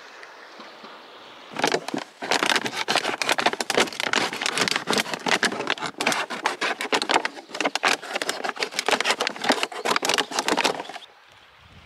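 A plastic bag crinkling and rustling as it is handled, a dense run of rapid crackles that starts about a second and a half in and stops about a second before the end. Before the crackling there is only a low steady hiss of moving water.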